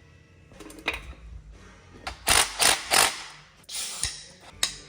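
A few sharp metal knocks and clanks from hand tools on engine parts, with three loud ones close together about halfway through.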